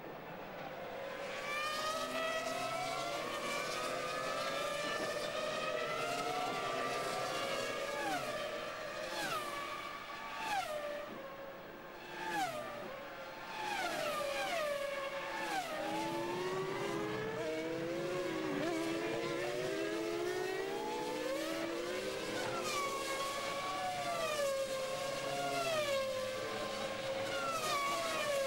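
Several Formula One cars' 3-litre V10 engines at racing speed, overlapping. Around the middle their pitch drops in a run of quick steps as they downshift under braking, then it climbs again as they accelerate away.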